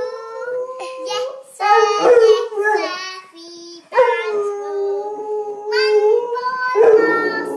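A young girl singing a lullaby while a Rottweiler howls along with her, in long held notes that break off and start again several times.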